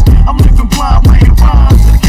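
Bass-boosted hip hop music: a heavy bass line under a drum beat, loud throughout.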